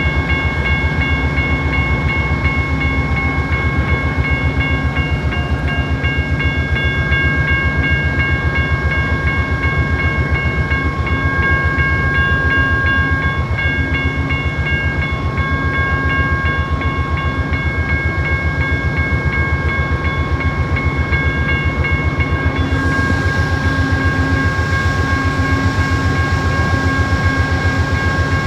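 Amtrak GE P42DC diesel locomotive standing at a station, its engine running steadily with a fast, even low pulse and a steady whine of several high tones.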